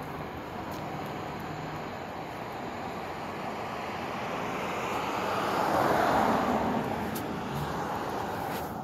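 A car passing on the street, its noise swelling to a peak about six seconds in and then fading away.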